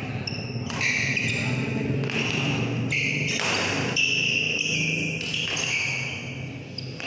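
Badminton doubles rally: rackets striking the shuttlecock with sharp knocks, court shoes squeaking on the floor, and a low murmur from spectators underneath.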